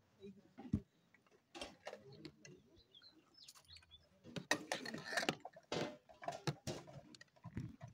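Scattered clinks and knocks of metal serving ladles against large aluminium cooking pots, a cluster of them about halfway through.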